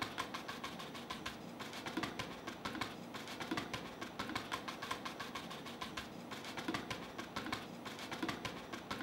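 Paintbrush dabbing and tapping against a stretched canvas, a quick irregular run of soft taps as the paint is laid on in small strokes.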